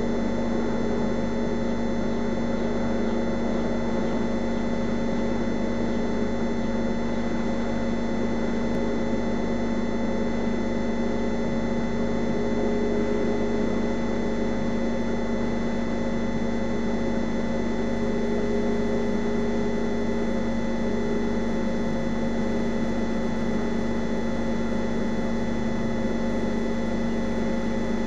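Steady electrical hum with hiss underneath, unchanging throughout.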